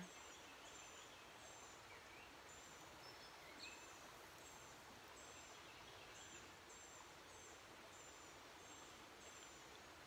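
Near silence: faint outdoor ambience, a soft even hiss with a high, faint chirp repeating about twice a second and a few faint bird calls.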